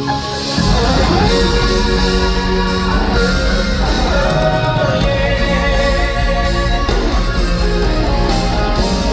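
Live pop-rock band music played loud through an arena PA, with electric guitar, bass and drums. The full band comes in about half a second in, and is likely the song's intro before the vocals.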